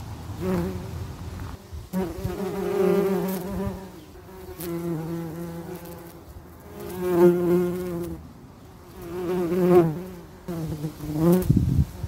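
Bees buzzing, the drone swelling and fading about six times as they fly close by, its pitch wavering slightly with each pass.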